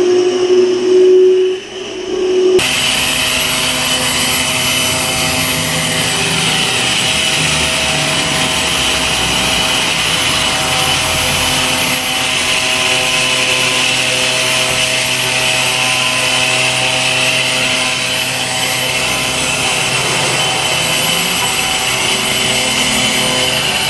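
Suction fan of an Ibex wall-climbing RC robot running steadily, a whirring whine like a small propeller, holding the robot against the wall as it climbs. About two and a half seconds in, a single steady hum gives way abruptly to a louder, fuller whir.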